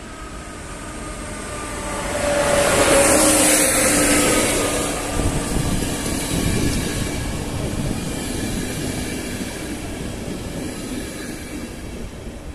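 An electric locomotive hauling passenger coaches passes close by. It grows louder, and its whine drops in pitch as it goes past about three seconds in. Then the coaches' wheels rumble and click along the rails, and the sound fades as the train moves away.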